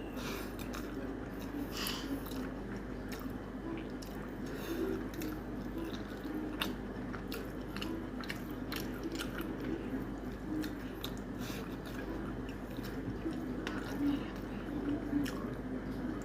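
Close-miked chewing and biting of spicy mutton curry with rice: wet, smacking mouth sounds with many short, sharp clicks, over a steady low hum.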